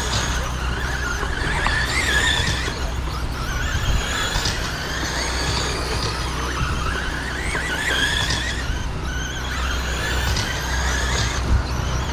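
Several Traxxas Slash Mudboss 1/10 RC dirt-oval cars racing, their electric motors and geartrains whining in overlapping tones that rise and fall as the drivers throttle through the straights and turns.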